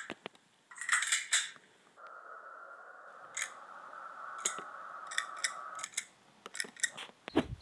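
Two short pops about a second in, then a series of light metallic clicks from a toy revolver's hammer and trigger being worked, several in quick succession, under a faint steady whine; the gun is not firing.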